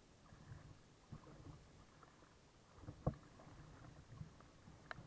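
Faint sea water lapping against an Exo Surfetto surf kayak's hull, with a few short slaps or knocks, the strongest about three seconds in.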